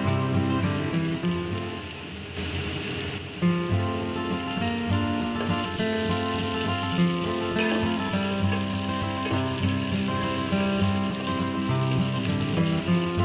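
Food frying and sizzling in hot oil in a pan, under background instrumental music. The music drops out briefly between about two and three and a half seconds in.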